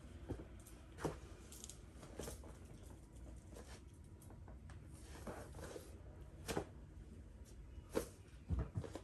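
Soft rustles and brief knocks from a person doing full prostration bows, irregularly spaced, with the deepest thump near the end.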